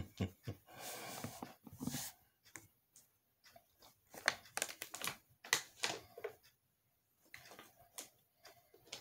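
Irregular clicks, taps and rustling from objects handled close to the microphone, ending with a drink from a plastic water bottle.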